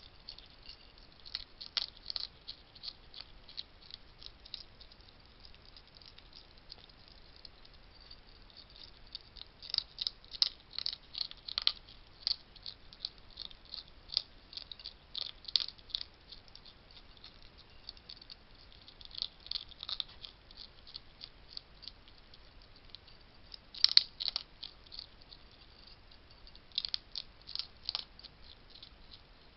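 Wild hedgehogs feeding at a garden feeding station: bouts of crisp clicking and crunching, typical of hedgehogs chewing dry food, with short pauses between bouts and the loudest burst about 24 seconds in.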